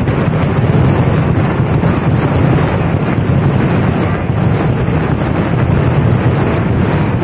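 Daytime fireworks barrage: firecrackers going off in rapid succession, merging into a continuous loud rumble with crackling.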